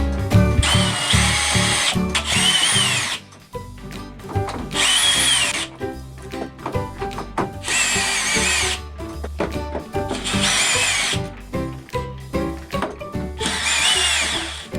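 Power drill running in five short bursts, each about a second long, its motor whine rising and then dropping in pitch, over background music.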